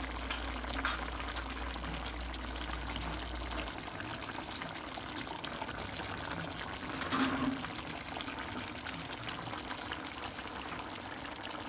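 Chicken afritada stew simmering in a pan over a gas burner: a steady watery hiss and bubbling. A brief knock about seven seconds in.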